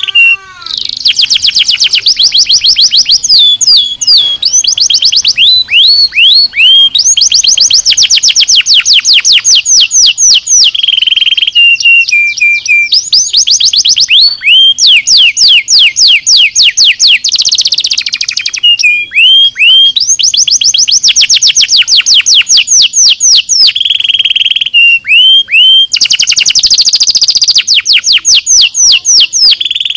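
Domestic canary singing continuously: fast trills of rapidly repeated notes, each sweeping down in pitch. The song switches to a new trill every few seconds, broken by a few short runs of separate sweeping whistles.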